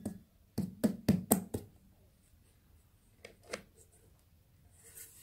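A hand tapping on the base of an upturned metal cake tin sitting on a plate, a quick run of about five knocks, to loosen the baked cake so it drops out of the tin. A couple of softer knocks follow about three and a half seconds in.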